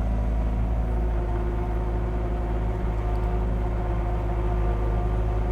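Caterpillar 259D3 compact track loader's diesel engine running steadily while it grades dirt with a laser-controlled blade, with a steady whine joining in about a second in.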